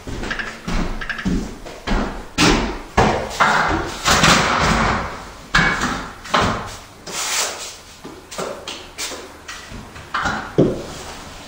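Steel drywall trowel working joint compound off a hawk and onto the wall: an irregular run of scrapes, knocks and smears of metal on mud and board.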